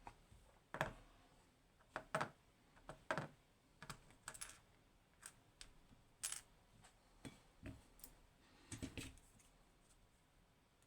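Small metal lock parts and tools clicking and tapping on a hard surface as a Clavis 10-pin lock is taken apart. The clicks are light and uneven, about fifteen over nine seconds, with a quick cluster near the end before they stop.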